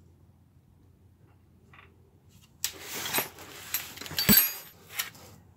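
Metal tools and parts clanking and clinking as they are handled, a run of sharp clanks starting about two and a half seconds in, the loudest a little after four seconds.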